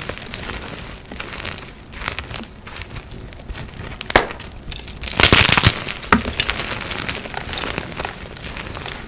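Hands crushing and crumbling soft dyed gym chalk into powder and fragments: dry, irregular crunching and crackling. A sharp snap comes about four seconds in, and the loudest burst of crunching follows about a second later.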